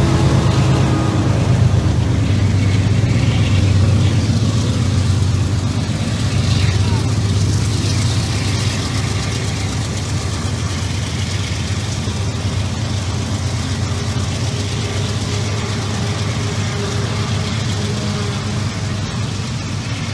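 Norfolk Southern diesel-electric freight locomotives passing close by under load, with a deep, steady engine rumble that eases off a little about halfway through as they go by. The lead unit is running with what the title calls a blown turbo.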